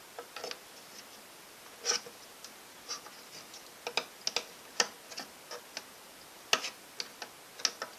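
Irregular light clicks and knocks of metal parts as a Ford Model T transmission band is pried and worked off its drum. About a dozen scattered taps, with the loudest about two seconds in and again past six seconds.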